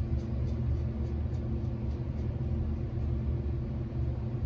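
A steady low hum of a running machine in the room, unchanged throughout, with a few faint light ticks.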